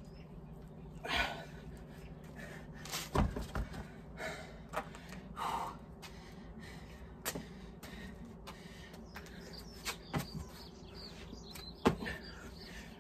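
A man breathing hard between exercises, with several knocks and thuds: a pair of dumbbells set down on paving slabs, a heavy double thud about three seconds in, and hands slapping down on the ground near the end as he drops into a burpee, the loudest knock.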